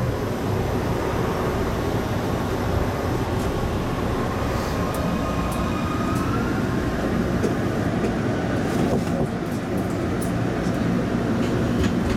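MBTA Red Line subway car running through the tunnel, heard from inside the car: a steady rumble of wheels on rail and running gear, with a faint whine in the middle and a few sharp ticks in the last few seconds.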